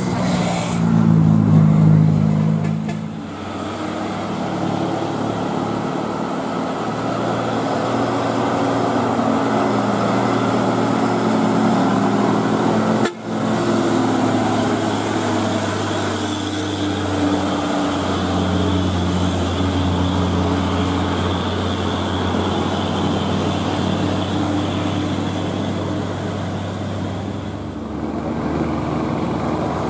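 Diesel truck and bus engines running as they pass on a road, the low engine note rising and falling, over general traffic noise. The sound is loudest about two seconds in and drops out briefly about halfway through.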